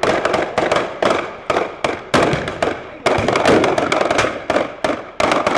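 Battle reenactment gunfire: rifles firing blanks in a rapid, irregular string of shots, about four a second and often overlapping, each shot ringing briefly.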